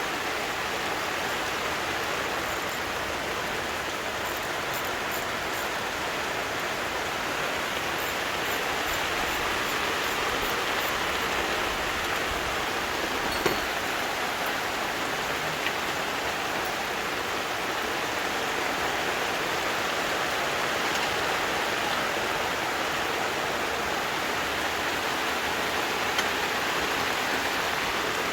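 Steady rain falling, an even hiss with no letup, with a single short click about halfway through.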